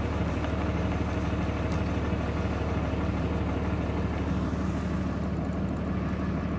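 Pickup truck engine idling steadily, heard from inside the cab.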